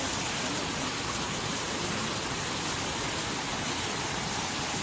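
Steady rushing of a waterfall, an even hiss of falling water that holds the same level throughout.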